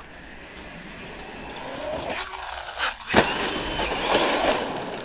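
Traxxas Maxx V2 RC monster truck driving on gravel: its brushless motor whines and its tyres scrabble over the loose surface. The sound eases off briefly, then a sharp knock comes a little past three seconds in.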